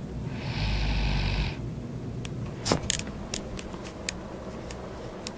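A woman snoring in her sleep: one long, rasping snoring breath about half a second in, followed from about two seconds in by a scatter of sharp clicks and taps.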